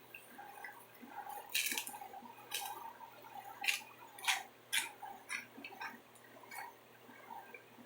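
Faint, irregular wet clicks and smacks of a person chewing a mouthful of pizza.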